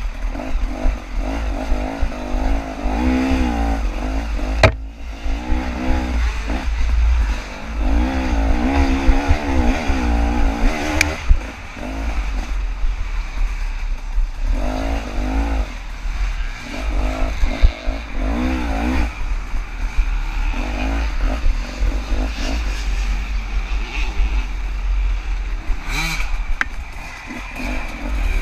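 KTM 300 two-stroke dirt bike engine being ridden hard, the revs rising and falling over and over as the throttle is worked. A few sharp knocks and clatters sound over it, the sharpest about five seconds in.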